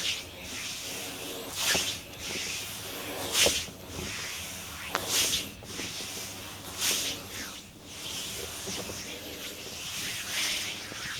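Hands rubbing and sliding over skin in massage strokes, a hissing swish about every one and a half to two seconds.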